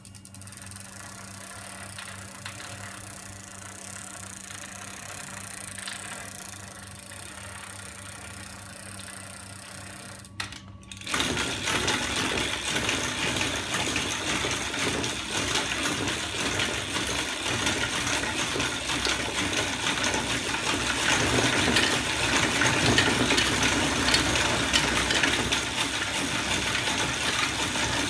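Homemade magnet-assisted bicycle drive running, its chain, sprockets and rear wheel turning with a mechanical whir and rattle. For the first ten seconds it is fainter, over a steady low hum. After a short break about ten seconds in, it is much louder and rattles continuously.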